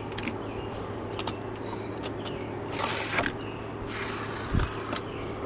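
Die-cast Hot Wheels toy van rolling along a plastic toy track: short rolling swishes with sharp clicks, and a soft thump about four and a half seconds in.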